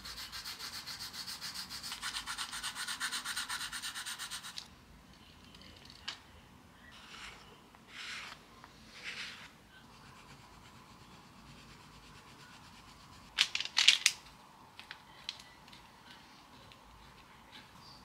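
Soft graphite pencil scribbling on tracing paper in rapid back-and-forth shading strokes, stopping about four and a half seconds in. A few slower rubbing strokes follow, then a cluster of sharp clicks and taps about halfway through.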